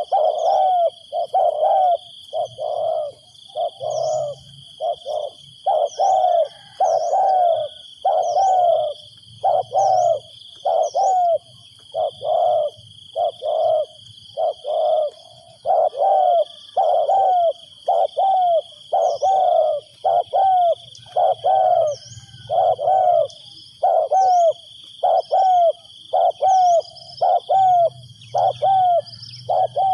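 Spotted dove cooing over and over, short coos about once a second: a decoy dove calling to lure wild doves. A steady high insect drone and faint chirps of small birds run underneath.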